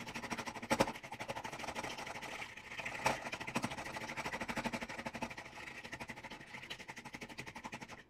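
A fork beating raw eggs in a bowl for scrambled eggs: fast, steady clicking of the fork against the bowl, with a louder knock about a second in and another about three seconds in.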